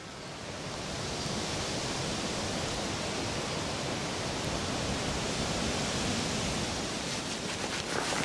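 Steady hiss of heavy rain that swells in over the first second. Near the end, sharp crackles start on the microphone.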